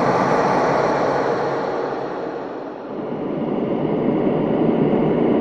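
Evil doom breath horror sound effect: deep, dark, processed breathing. One long rushing breath fades about two and a half seconds in, and a second breath swells up after it.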